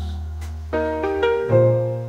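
Instrumental break in an AI-generated jazz song: a piano plays several chords in quick succession over sustained low bass notes, with no vocal.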